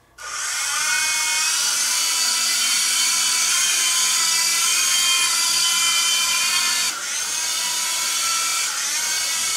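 Protocol Skyline G-Series coaxial RC helicopter's electric motors and rotors spooling up to a high whine that rises over the first second, then holding near full throttle, with a brief dip about seven seconds in. The craft has too little power to climb, which the owner puts down to a bad battery.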